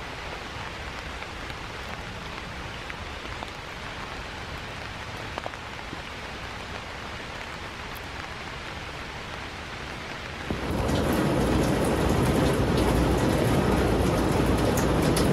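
Steady rain falling on a tent fly, heard from inside the tent, with scattered single drop ticks. About ten seconds in it gives way suddenly to a much louder, heavier downpour.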